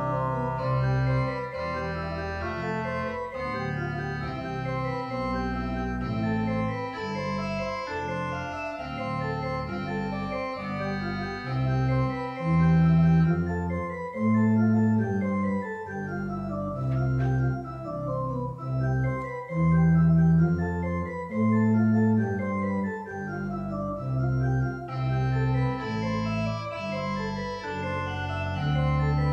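Church organ playing slow sustained chords over a moving line of low bass notes. The bright upper notes thin out in the middle and come back near the end.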